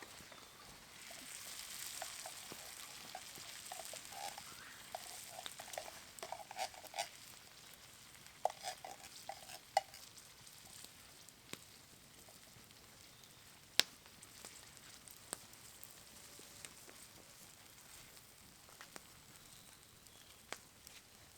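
Food sizzling in a pan over a campfire, with short scraping squeaks of stirring in the first half. Scattered sharp clicks run on after the sizzle fades.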